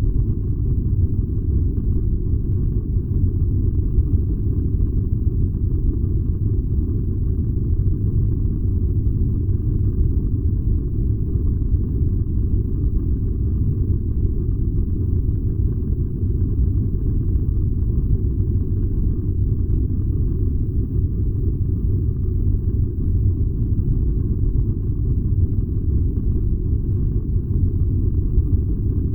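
A furnace burning with a steady, deep rumble, unchanging throughout.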